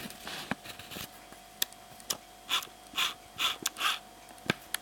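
Handling noises as a plastic flip clock is turned over by hand: a few sharp clicks and knocks, then from about halfway a run of short rubbing or scraping sounds about twice a second.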